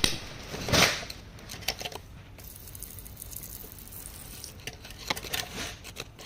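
Hand chisel scraping and chipping at rock to free an agate, with a long rasping scrape about a second in and a few light taps and clicks of grit near the end.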